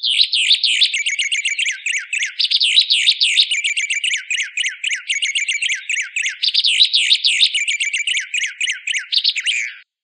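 Songbird of the kind kept in Indonesia as the 'White Singer', singing a fast, unbroken, high-pitched chattering song of rapid sweeping notes; the song breaks off abruptly near the end.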